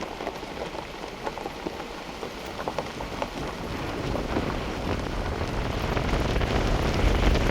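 Wind buffeting the microphone, over a steady crackle of many small ticks. The low rumble of the wind grows stronger in the second half.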